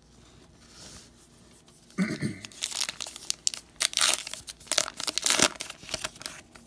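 A baseball card pack wrapper being torn open and crinkled by hand, in a quick run of crackling tears from about two and a half seconds in.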